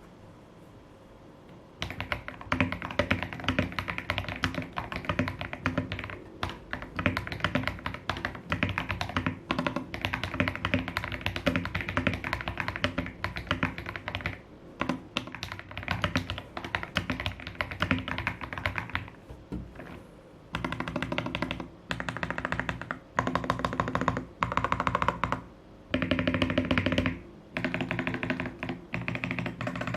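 Fast typing on a Tester68 mechanical keyboard with KTT Wine Red linear switches, GMK Jamon clone keycaps and a three-layer tape mod. The typing starts about two seconds in and runs on without a break, then comes in short bursts with brief pauses over the last third.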